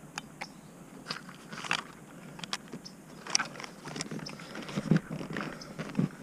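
Irregular small plastic clicks and scrapes as a wiring connector is plugged into a new cruise control switch and the switch is handled into place in the steering wheel.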